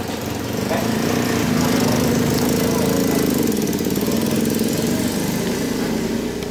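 A small engine running steadily, its hum wavering slightly in pitch, louder through the middle.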